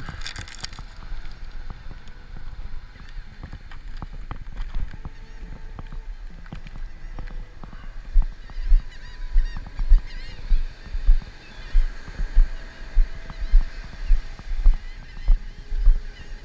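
Footsteps in sand thudding through a body-worn camera, a steady walking rhythm of about three steps every two seconds that starts about halfway through, over a steady hiss of wind and surf.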